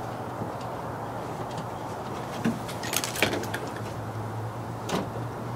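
A few sharp metallic clicks and clinks as hand tools and hardware knock against the inside of a pickup's steel tailgate, over a steady low hum.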